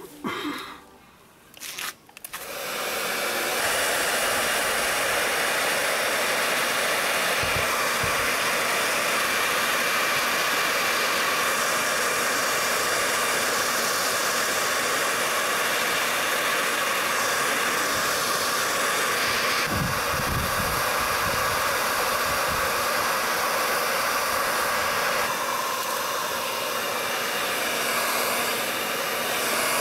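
Handheld hot air gun switched on about two seconds in, then blowing steadily with a faint motor hum as it melts a plastic filler rod into the crack of a plastic tank.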